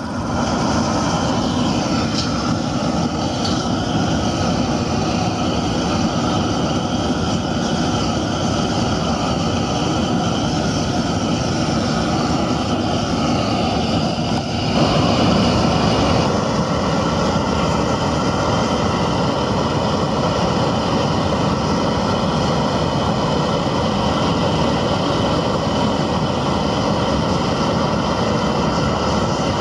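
Propane gas torch burning with a steady loud rushing hiss as its flame heats steel rebar for bending; the sound shifts slightly about halfway through.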